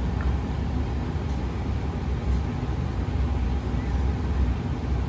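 Old American Standard gas furnace running with its burners firing, a steady low rumble.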